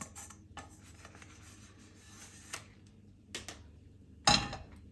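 Light clinks of cookware over a faint steady hiss, then near the end a stainless-steel skillet clanks down onto the gas stove's metal grate, the loudest sound, ringing briefly.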